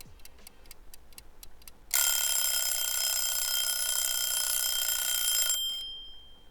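Kitchen timer ticking about four times a second, then its bell ringing loudly for about three and a half seconds before cutting off, the signal that the baking time is up.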